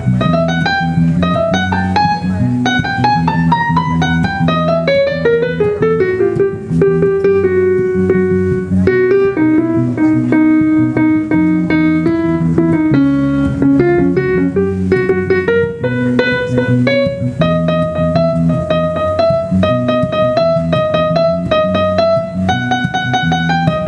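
A small jazz combo playing an instrumental break. A held melody line slides slowly down and back up over a steady, repeating keyboard accompaniment.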